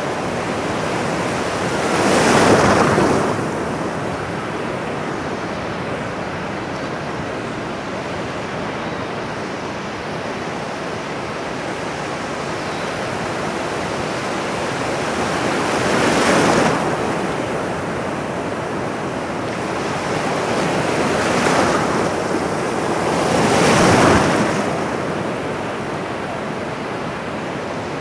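Ocean waves washing on a shore: a steady hiss of surf with four louder breakers, the first about two seconds in and three more in the second half.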